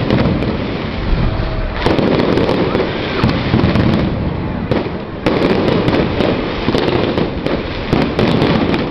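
A fireworks display going off in a dense, continuous run of crackles and bangs. Louder clusters of sharp reports come every few seconds.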